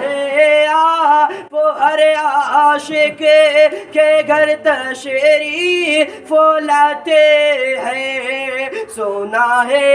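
A man singing a naat solo into a microphone, unaccompanied, in long held lines with ornamented turns that waver up and down in pitch.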